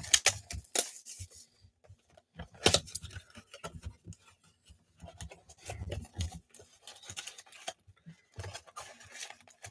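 Trading card box and pack packaging being opened by hand: intermittent scratchy rustling and scraping of wrapper and cardboard, with a few sharp clicks.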